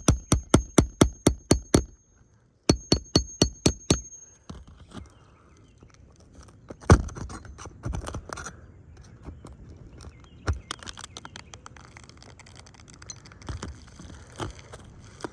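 Electronic music with a fast, steady beat for about four seconds, broken once by a short dead gap, then it stops. After it come scattered knocks and scrapes of hands-on work on an asphalt shingle roof, with one loud thunk near the middle.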